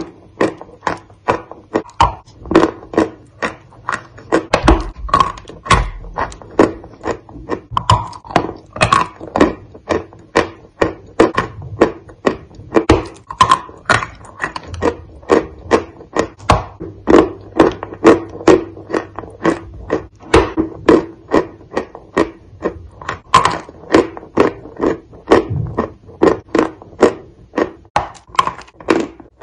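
Close-up chewing of a crumbly Turkestan cookie: a steady run of crunching chews, about two to three a second, with wet mouth sounds between them.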